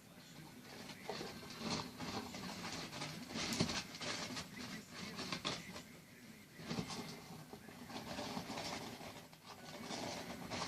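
Irregular rustling and scratching, with small clicks and short scrapes coming and going at uneven intervals.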